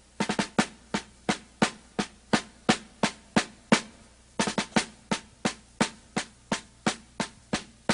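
Snare drum playing a steady march-style cadence, about three strokes a second with quick rolled ruffs here and there, as the opening of a music track.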